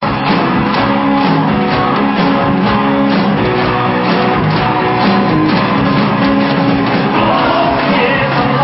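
Live concert band playing upbeat rock music with a steady beat of about two strokes a second.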